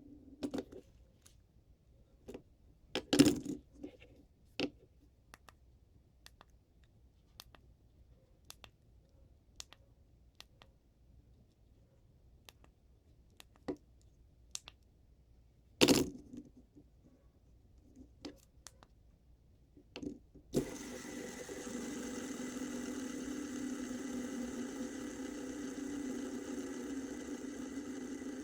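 Sparse light plastic clicks and taps from handling a fidget spinner, with two louder sharp clicks. About two-thirds of the way in, a steady hum with a thin high tone starts abruptly.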